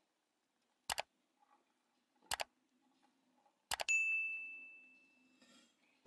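A subscribe-button sound effect: three mouse clicks about a second and a half apart, each a quick double click, then a bell ding that rings and fades over about a second and a half.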